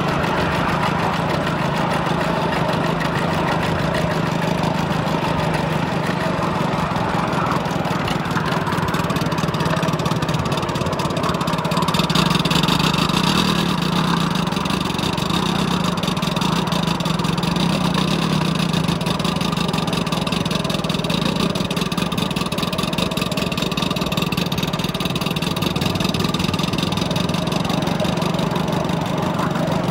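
5-inch gauge Polly Trojan miniature coal-fired steam locomotive, fitted with a Kordina exhaust, running steadily with a train of coaches: its exhaust beats and wheels rolling on the rails. A brighter hiss comes in for a few seconds about twelve seconds in.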